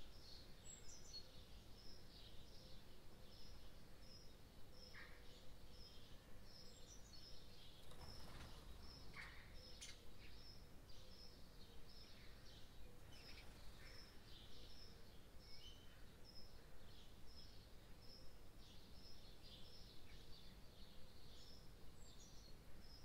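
Near silence: low background noise with a faint, high chirp repeated over and over at an even pace.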